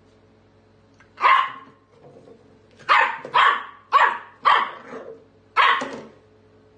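A puppy barking: one sharp bark about a second in, then five more in quick succession.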